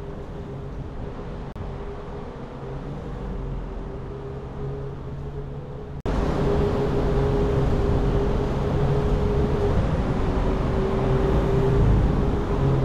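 Car driving slowly: steady engine and road hum with a held droning tone. About six seconds in, the sound abruptly jumps louder and brighter.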